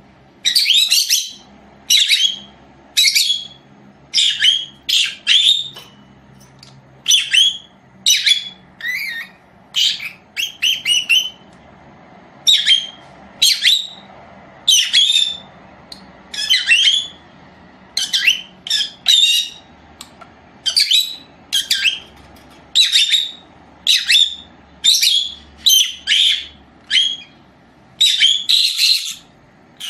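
Caged pet parrot calling: a continuous run of short, high-pitched squawks, about one or two a second.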